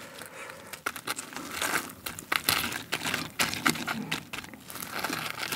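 Crispy fried coating of BBQ Golden Olive fried chicken drumsticks crackling and rustling as a gloved hand picks one out of the pile and turns it, in many short, dry crackles.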